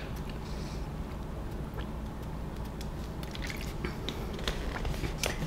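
Person chewing a mouthful of pizza: small, soft wet mouth clicks scattered over a steady low background hum.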